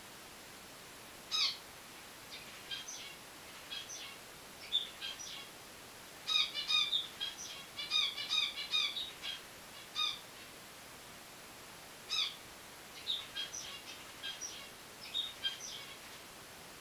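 Finches calling: short, high chirps in scattered runs, with a dense flurry in the middle and short pauses between runs.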